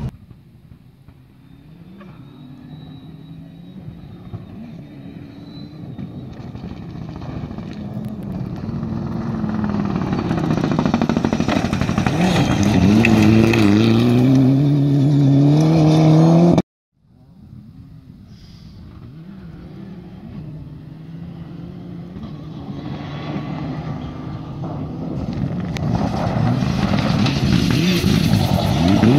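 A rally car's engine at high revs approaching on a gravel stage, growing steadily louder, its pitch climbing and stepping with gear changes as it passes close by, then cutting off abruptly about two-thirds of the way in. A second rally car's engine then builds in loudness as it approaches near the end.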